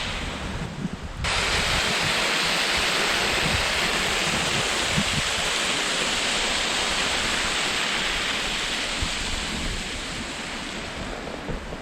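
Steady rushing of a small creek waterfall pouring into its pool, a dense even hiss of falling water. The sound changes abruptly about a second in, then runs on evenly.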